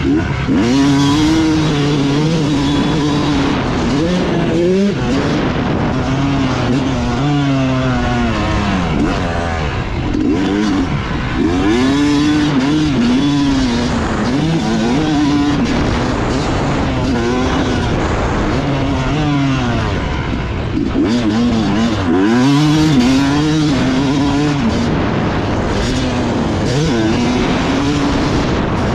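Yamaha YZ250 two-stroke dirt bike engine under hard riding, its pitch climbing and dropping over and over as the throttle is opened and closed around the track.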